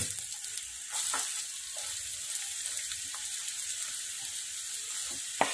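Chopped onions sizzling in hot oil in a steel kadhai, with a few clinks of a steel spoon against the pan as they are stirred.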